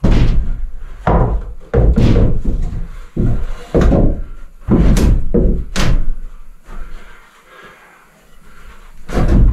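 Wooden 2x4 frame being knocked and forced into a framed wall opening: a run of heavy wooden thuds and knocks, about eight in the first six seconds, then a lull and one more knock near the end.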